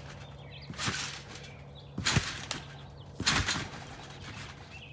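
A person bouncing on a trampoline, three landings about a second apart, each a short thud from the mat and springs, the last two the loudest, building height for a backflip.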